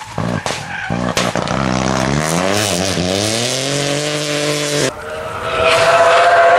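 Rally car engine revving hard out of a hairpin, a few sharp cracks at first, its pitch rising, dipping once at a gearshift and rising again. About five seconds in, the sound switches abruptly to the high, slowly rising and falling whine of an Opel Corsa Rally Electric's electric motor.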